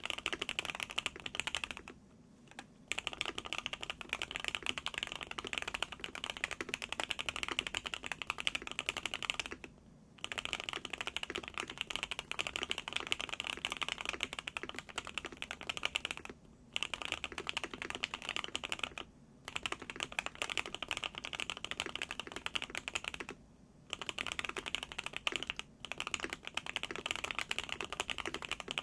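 Steady fast typing on a Qwertykeys QK65 mechanical keyboard with hand-lubed Gateron Oil King linear switches, a POM plate, tape mod and CMK keycaps. A brief pause comes every few seconds.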